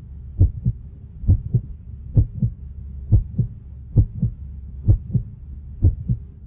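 Heartbeat sound effect: paired low thumps, lub-dub, repeating a little under once a second over a faint low hum.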